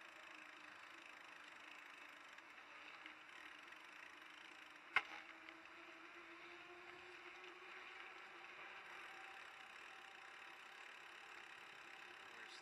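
Faint steady hum and hiss from the small vehicle carrying the camera as it rolls slowly across paving, with one sharp click about five seconds in.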